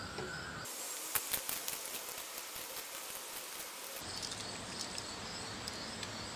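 Faint outdoor background of insects chirring, with a few light clicks and taps about a second in.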